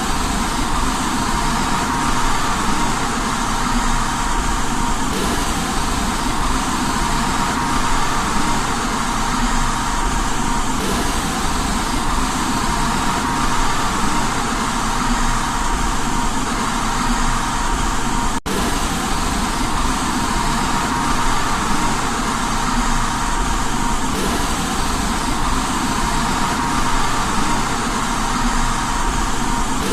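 Steady white noise for baby sleep: an even, unchanging hiss with a faint constant tone running through it. It cuts out for an instant about eighteen seconds in, then carries on the same.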